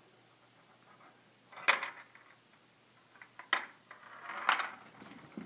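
Perplexus Epic plastic maze sphere being tilted in the hands: three sharp clicks, the first under two seconds in and the loudest, with a short rattle around the last, as the ball and the plastic pieces knock together.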